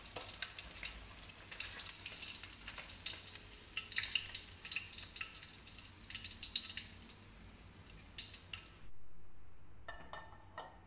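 Hot cooking oil sizzling and crackling in a wok as whole fried fish are lifted out with tongs. The sizzle cuts off abruptly about nine seconds in with a dull thump, followed by a faint, brief ringing sound near the end.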